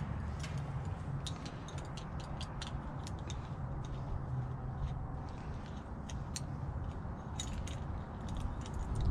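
Scattered light clicks and taps of small metal parts and tools being handled, over a steady low background hum.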